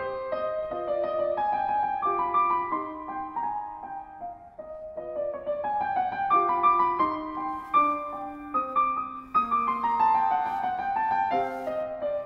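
Grand piano playing a classical passage, a running stream of separate notes.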